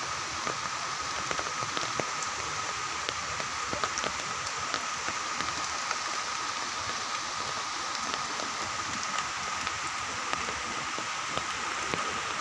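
Steady rain falling, with many scattered sharp drop ticks and a thin steady high tone running under it.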